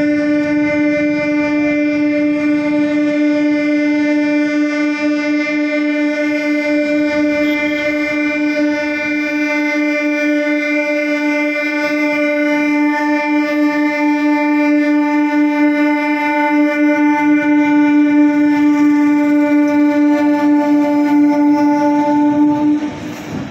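A passenger train's horn sounded as it pulls out of the station: one long, steady, low note held for over twenty seconds, cutting off suddenly near the end.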